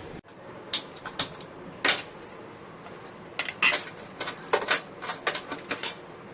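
Kitchen utensils clinking and clattering as they are handled: a string of short, sharp knocks, sparse at first and coming thick and fast in the second half.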